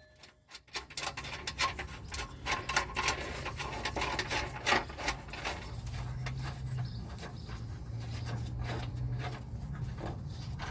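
Irregular metallic clicks, taps and scraping as loose bolts are worked out of the frame under a Jeep Grand Cherokee by hand and with a socket, with a steady low hum underneath from about halfway through.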